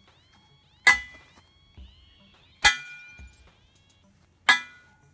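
Five-pound hammer striking a steel T-joint test piece three times, about two seconds apart; each blow is a sharp metallic clang with a brief ringing afterwards.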